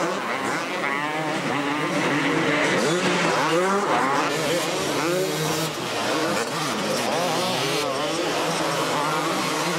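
Several two-stroke motocross bikes racing, engines revving up and down in overlapping rising and falling pitches.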